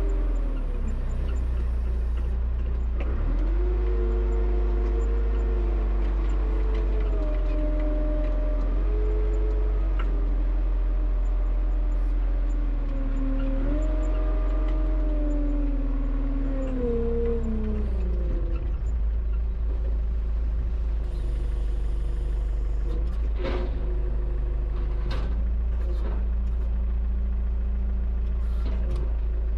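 Front-loader tractor engine running with a steady low drone. Over it, a whine shifts up and down in pitch through the first half, then the engine settles to steady running. A few sharp knocks or clanks come near the end.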